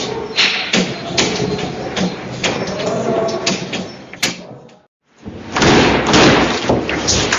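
Sound effect of a building shaking in an earthquake: a dense rumble with rapid, irregular knocking and rattling. It fades out about four and a half seconds in, stops briefly, then comes back louder.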